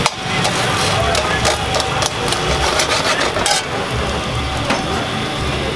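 Buttered sandwich frying on a flat iron griddle: a steady sizzle with a slotted steel spatula scraping and tapping against the pan, over a steady low rumble. The spatula clicks come thick at first and thin out about halfway through.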